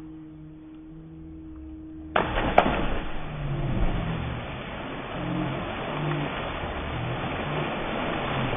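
A steady engine-like hum, then about two seconds in a sudden loud splash of a person plunging feet-first into the sea, followed by a continuous rushing noise of churning water.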